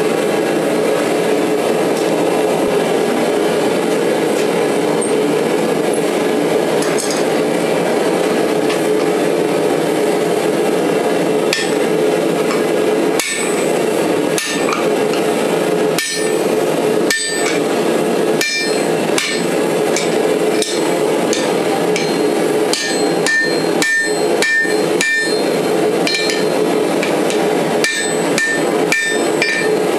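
Hand hammer striking hot steel on an anvil, starting about a third of the way in and coming in irregular runs of quick blows, each with a bright metallic ring. Underneath, a steady roar.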